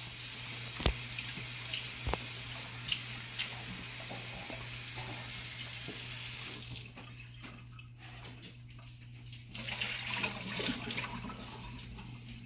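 Kitchen sink tap running as grapes are rinsed under it; the flow gets louder about five seconds in, then shuts off about seven seconds in.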